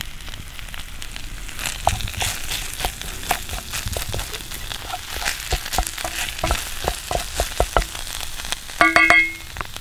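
Minced squirrel meat in barbecue sauce sizzling in a cast iron skillet over coals, with a wooden spatula scraping and tapping the pan as it stirs. About nine seconds in, a short pitched sound lasting about half a second is the loudest thing heard.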